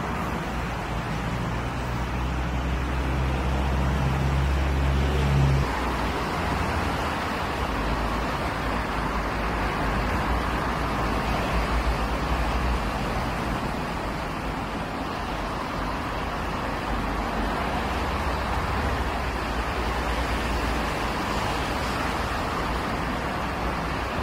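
Seoul Subway Line 3 electric train running along the track as it pulls away. A low hum cuts off about six seconds in, leaving a steady wash of distant running noise.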